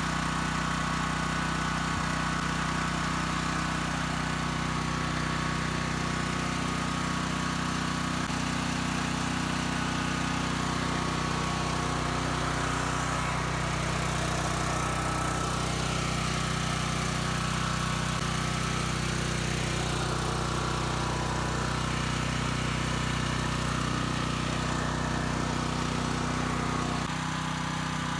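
Craftsman 7000-watt portable generator engine running at a steady speed on its first break-in run, just after its electric start. It is slightly quieter near the end.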